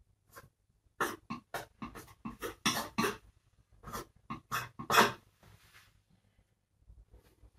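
Palette knife working oil paint onto a canvas on an easel: a quick, irregular series of short scrapes and dabs that stops about five seconds in.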